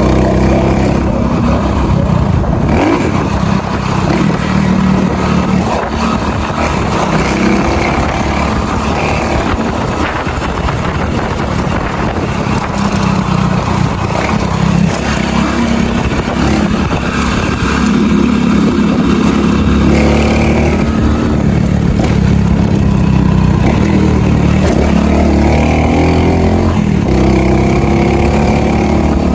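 Small single-cylinder motorcycle engine running steadily under way, its pitch and level rising and falling a little.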